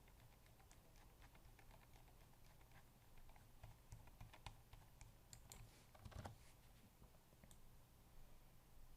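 Near silence, with faint, scattered clicks from working a computer, mostly between about three and seven seconds in.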